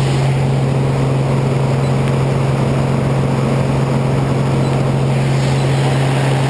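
Engine and propeller of a small single-engine high-wing plane, heard from inside the cabin in flight: a loud, steady drone with a strong low hum that does not change.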